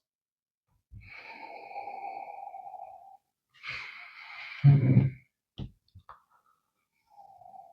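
A person breathing in slowly through the nose for about two seconds, smelling the tonic water, then breathing out with a short low hum. A few faint clicks follow, and another soft breath comes near the end.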